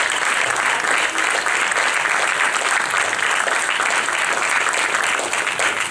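Audience applauding, dense and steady clapping from a large crowd.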